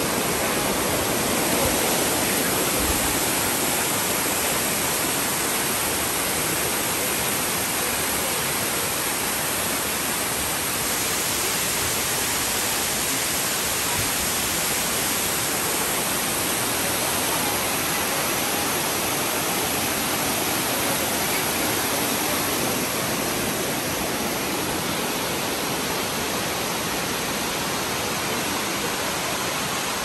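Amicalola Falls waterfall: a steady, loud rush of falling water that stays even throughout.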